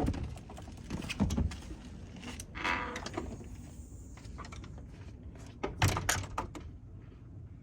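Scattered knocks, clicks and clatter of things being handled, with a short rustle about three seconds in and a louder cluster of knocks around six seconds in.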